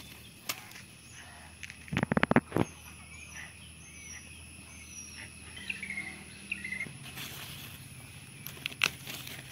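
Dry leaf litter and twigs crackling and snapping as hands pick wild mushrooms from the ground, with a quick cluster of sharp clicks about two seconds in and a few more near the end. Faint bird chirps sound in the background.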